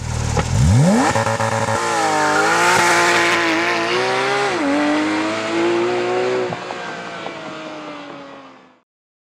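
Porsche 911 GT3 RS flat-six engine revving up sharply as the car launches, then pulling hard with its pitch dipping at gear changes. It fades and falls in pitch as the car drives away, and the sound cuts off shortly before the end.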